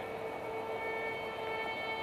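Marching band holding a soft, sustained note.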